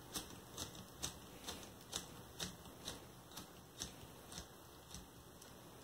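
Faint plastic clicking, about two clicks a second, from a Lego Technic hand crank being turned, its worm gears driving gear racks to slide the forklift mast forward. The clicks stop about five seconds in.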